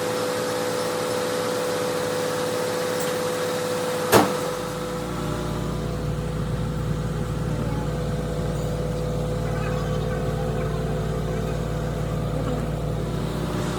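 Steady mechanical hum, then a sharp click about four seconds in, after which a car engine's low steady running comes in and continues.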